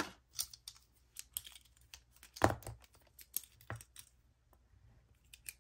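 A scattering of small, sharp clicks and taps from handling metal-barrelled retractable ballpoint pens on a desk, the loudest about two and a half seconds in.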